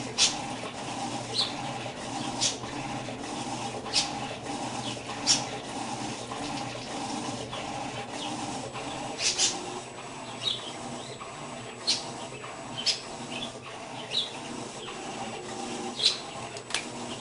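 Electrolux washing machine running: a steady hum with a sharp swish of water and clothes every one to two seconds.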